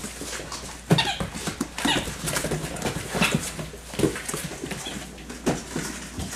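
Six-week-old Labrador Retriever puppies growling in play: a string of short, irregular growls and small noises, the loudest about a second in and again near two, three and four seconds in.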